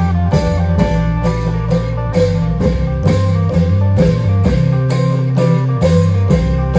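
Isan klong yao band music: drums strike a steady beat about two times a second under a held bass line and a plucked-string melody.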